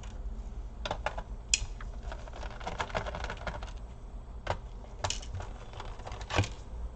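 Scattered light clicks and short scrapes of a small screwdriver and fingers working screws out of a laptop's plastic bottom case.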